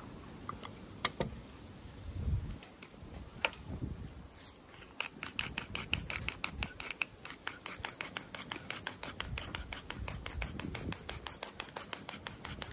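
Hand-held pepper grinder being twisted over a plate: a rapid, continuous run of dry clicks and crunching that starts about four and a half seconds in. A few separate knocks come before it.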